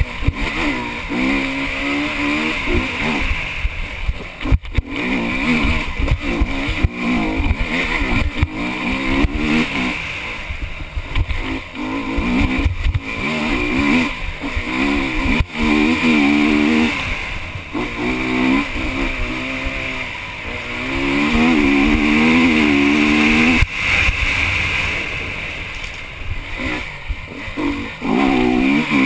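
Honda HM enduro motorcycle engine, heard from the rider's helmet, revving up and falling back again and again as the bike is ridden hard on a dirt trail. A few sharp knocks break in along the way.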